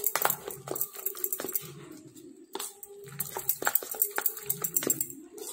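Biri (black gram) batter being beaten by hand in a steel bowl: wet slaps and squelches with irregular clicks and knocks against the bowl, as the batter is whipped soft and airy.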